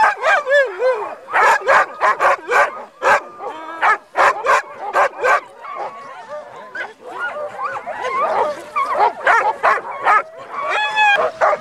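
A team of sled huskies barking and yipping, with many sharp barks in the first half giving way to overlapping high, wavering whines and yelps.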